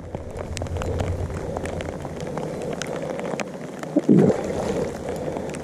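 Water splashing and churning as a hooked bass fights at the surface beside the boat, with many small ticks. A brief voice-like grunt about four seconds in.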